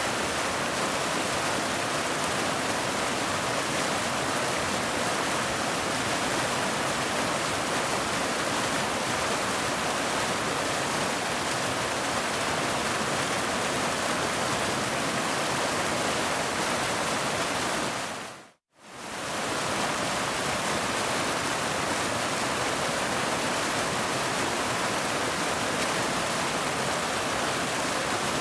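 Steady, even rush of a waterfall, which fades briefly down to silence and back up again about two-thirds of the way through.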